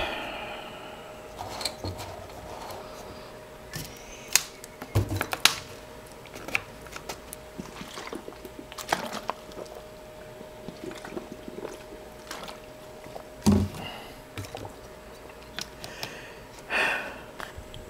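Clicks, crackles and a few thumps of things being handled on a cluttered table, a plastic water bottle among them, over a steady faint hum.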